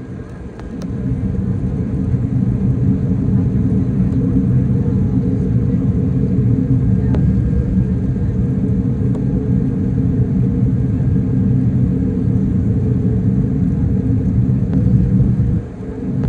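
Steady low rumble of cabin noise inside an Airbus A380, engines and airflow heard from a window seat as the airliner descends through cloud. The level dips briefly just after the start and again near the end.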